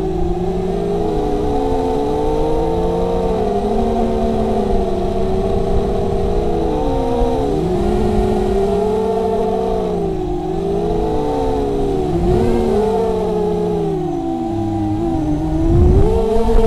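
Four brushless motors on a 250-size FPV racing quadcopter with 5040 propellers, heard from the craft itself. Their whine stacks into several pitches that rise and fall together as the throttle changes, with a rumble underneath and a louder swell near the end.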